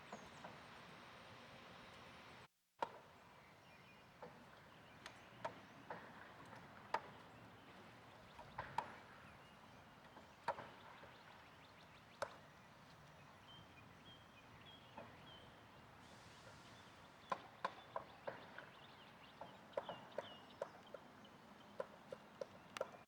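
Distant roofers' hammer blows and knocks from work on the chapel roof: faint, irregular single strikes, bunching up more often near the end.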